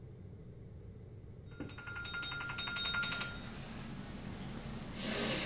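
Electronic wake-up alarm ringing: rapid repeating beeps at a steady pitch, starting about a second and a half in and fading out a couple of seconds later. A brief hiss near the end.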